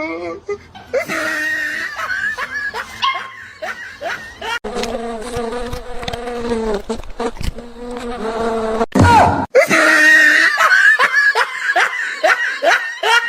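People laughing loudly in short, shrill bursts, across several clips cut together, with a held, steady-pitched vocal sound a little before the middle.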